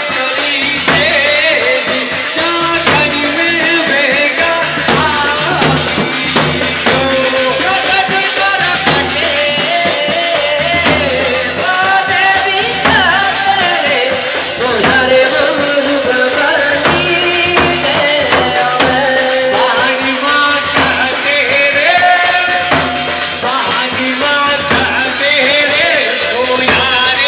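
Rajasthani folk music for a Gair stick dance: continuous rhythmic percussion with jingling, rattling strokes and a wavering melody line over it.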